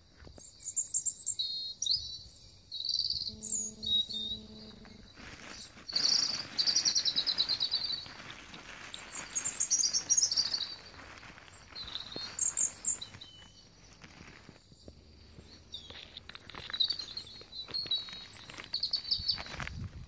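Small songbirds calling, with short high chirps and quick trills repeated throughout. Plastic and paper litter rustles in gloved hands, most around six seconds in.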